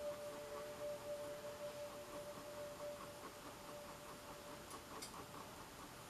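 Faint background music of two held, bell-like notes. The lower note dies away about a second and a half in, the higher one about three seconds in, leaving faint quiet.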